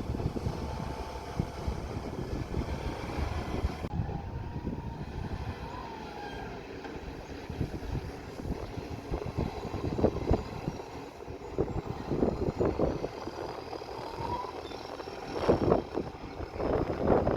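Garbage truck running with an exhaust leak, a steady uneven rumble that swells into louder surges several times in the second half.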